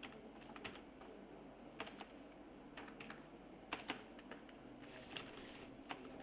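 Computer keyboard being typed on in faint, irregular keystrokes, singly and in small clusters with short pauses between.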